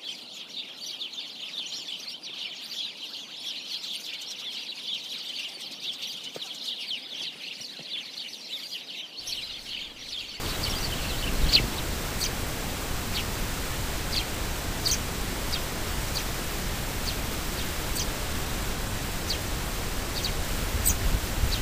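Sparrows chirping in a dense, busy chorus. About ten seconds in this gives way to a steady, louder hiss with scattered single sparrow chirps.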